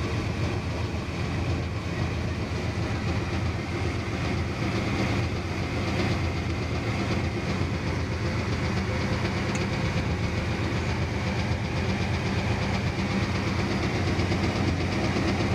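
Gasoline marine engine of a 1985 Olympic boat idling steadily.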